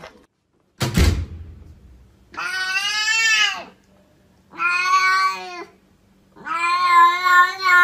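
A cat meowing three times, long drawn-out meows of about a second each, after a single sharp thump about a second in.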